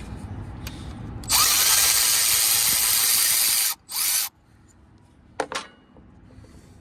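Power tool run on a 14 mm alternator bracket bolt, loosening it: one long run of about two and a half seconds, then a short second burst. A couple of sharp metal clicks follow near the end.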